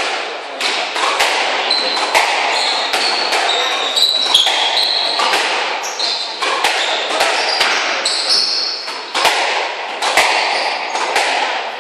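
Squash rally: the ball cracking off rackets and the court walls about twice a second, each hit ringing briefly, with short high squeaks of court shoes on the wooden floor between the hits.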